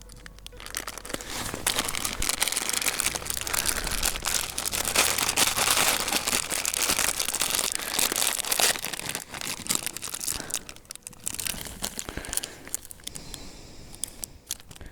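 Crinkling and crumpling of a thin material being handled, dense for about the first ten seconds, then sparser and fainter.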